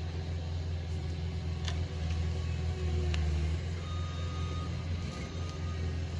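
CAT skid steer's diesel engine running steadily at work, with two sharp knocks in the first half.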